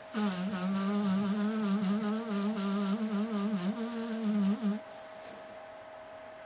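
A man's drawn-out moaning hum of pleasure, one long sound with a wavering pitch that stops suddenly about five seconds in. A faint steady high-pitched tone runs underneath.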